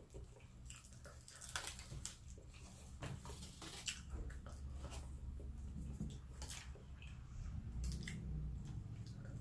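A person chewing food close to the microphone, with many small wet smacking and clicking mouth sounds over a low steady hum.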